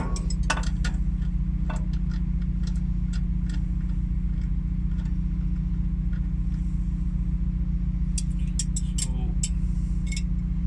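A steady low machine hum, like an engine running, throughout, with scattered sharp metallic clicks and clinks of wrenches and hydraulic fittings being handled, a few near the start and a cluster near the end.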